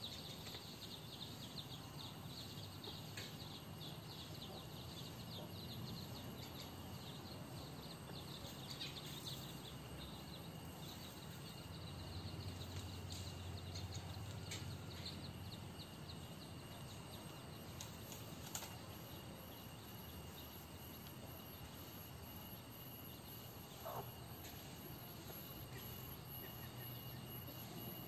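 Chickens foraging in a yard over a steady background of outdoor noise. Faint scattered chirps and clicks are heard, with one short falling call about 24 seconds in.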